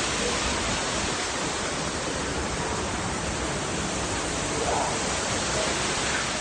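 Waterfall rushing close by: a steady, even noise of falling water.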